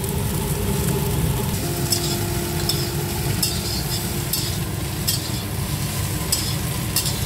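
Soya chunks coated in egg marinade sizzling as they fry in oil in a steel kadai, while a metal spatula stirs them and scrapes against the pan repeatedly from about two seconds in. A steady low rumble runs underneath.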